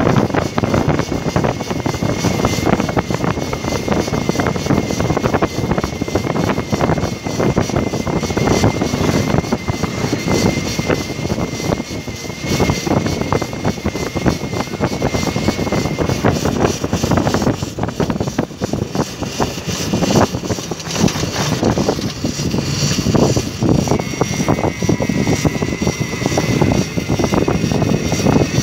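Wind rushing over the phone's microphone, with tyre noise from an electric bike riding along a paved road. A thin high whine from the e-bike's motor runs through the first half and comes back near the end.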